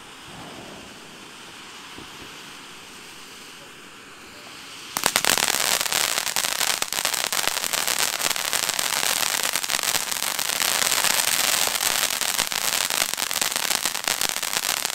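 Ground fountain firework hissing steadily as it sprays sparks; about five seconds in it breaks into loud, dense crackling that keeps going.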